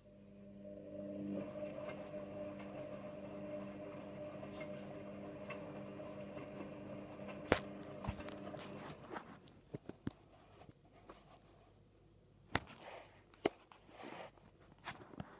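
Hotpoint WMA34 washing machine's drum motor running during the main wash: a steady hum that builds over the first second or so and stops about nine seconds in. A pause follows, with scattered clicks and knocks.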